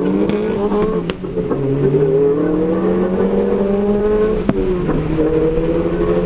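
Car engine accelerating hard through the gears, heard from inside a car's cabin. Its pitch climbs, drops with an upshift about a second in, climbs again for about three seconds, then a short sharp crack comes with the next shift and the pitch falls and starts rising again.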